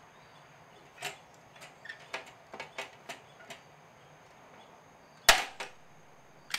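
A hand pop-rivet gun setting a rivet in sheet metal. Several light clicks come as the handles are squeezed, then one sharp, loud pop near the end as the rivet's mandrel snaps off, followed by a couple of small clicks.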